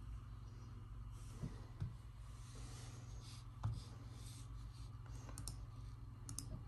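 Low steady hum with faint rustling and three dull thumps, then a few sharp, short clicks in the last second and a half, the kind made by clicking a computer's mouse or trackpad.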